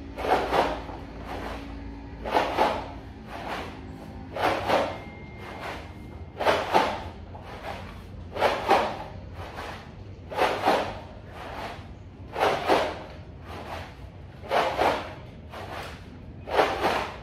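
A person working out with two filled plastic jugs as dumbbells: a short whooshing puff about every two seconds, one per repetition, with fainter ones in between.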